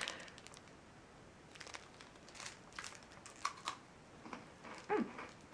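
Faint crinkling and crunching as a chocolate-coated hazelnut-cream wafer bar is handled and bitten. A few light clicks, with a brief sound falling in pitch near the end as the loudest moment.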